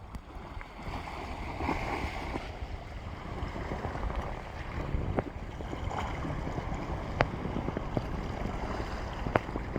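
Sea waves washing on the shore, with wind buffeting the microphone in a heavy low rumble. A few sharp clicks stand out, about five, seven and nine seconds in.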